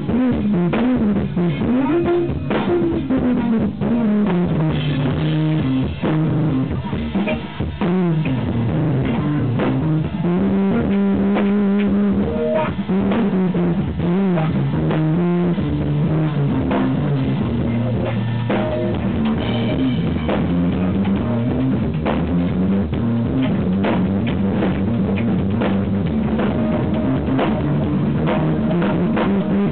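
Live instrumental jazz-rock fusion trio: electric guitar, electric bass and drum kit playing together, with a moving bass line prominent under dense drumming. The recording is overdriven and distorted.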